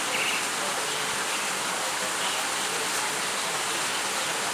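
Heavy monsoon rain falling in a steady, even hiss.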